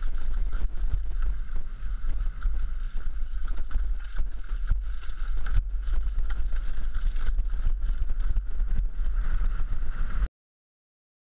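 Downhill mountain bike descending a rough, rocky dirt trail, heard from a helmet camera: heavy wind rumble on the microphone with constant rattling and knocking of the bike over rocks and ruts, and a steady high hum. The sound cuts out to dead silence about ten seconds in.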